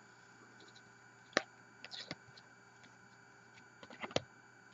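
A few light clicks and taps of trading cards being handled and flipped: one sharp click about a second and a half in, two more around two seconds, and a short cluster near the end.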